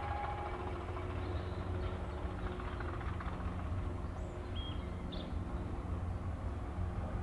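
Diesel locomotive engine idling: a steady low throb with a constant hum above it.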